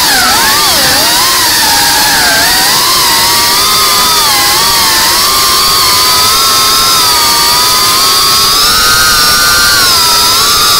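GEPRC CineLog35 cinewhoop quadcopter's motors and propellers whining, several tones rising and falling in pitch together as the throttle changes.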